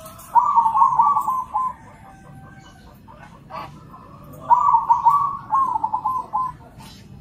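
Zebra doves (perkutut) cooing: two loud phrases of rapid, stuttering coos, each about a second and a half long, with fainter calls between them.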